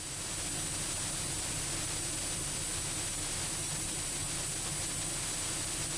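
Steady hiss of cockpit audio in a Cessna Grand Caravan on approach, with the low, even drone of its turboprop underneath and a faint high whine.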